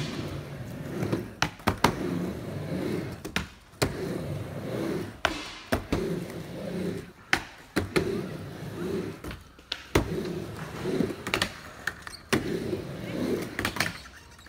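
Skateboard riding back and forth on a mini ramp. The wheels' rumble swells and fades with each pass, broken by sharp clacks as the board hits the coping at the top of each wall.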